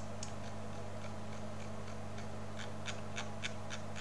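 Small sharp ticks of a computer mouse being clicked and scrolled, scattered at first and then in a quicker run of about four a second in the second half, over a steady low electrical hum.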